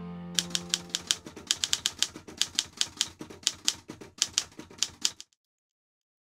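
Typewriter keys striking in a quick, fairly even run, about five strikes a second, as the title is typed out letter by letter, stopping sharply near the end. A music chord fades out during the first second.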